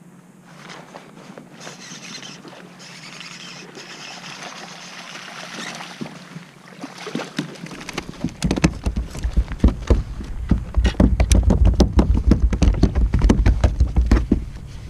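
Light rustling and clicking, then from about eight seconds in a long run of rapid knocks and thumps on a kayak.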